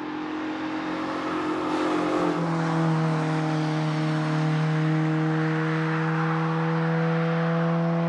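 Ford Fiesta race car's engine pulling out of a corner and up the straight under load. Its pitch drops once about two seconds in, then holds steady as it keeps accelerating away.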